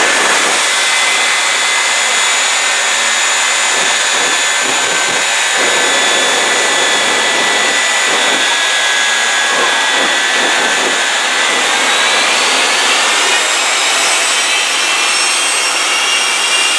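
Jet engines of a triple-jet-powered Peterbilt semi running loud, a dense rushing noise with several high steady whines. In the last few seconds the whines rise in pitch as the engines spool up.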